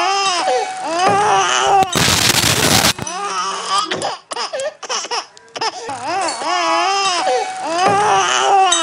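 A baby's voice babbling and crying-laughing in rising and falling wails. About two seconds in it is broken by a loud burst of noise lasting about a second, followed by a few scattered clicks and a low hum. The baby's wailing returns about six seconds in.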